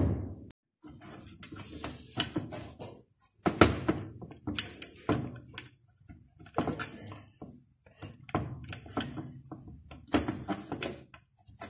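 Irregular clinks, knocks and scrapes of hand tools and small metal engine parts being handled during brush cutter engine repair work.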